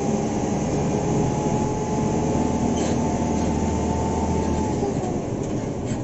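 Isuzu NQR medium bus under way: its diesel engine runs steadily with a low drone and a thin whine. About five seconds in, the whine and the deepest part of the drone fall away and the sound eases slightly.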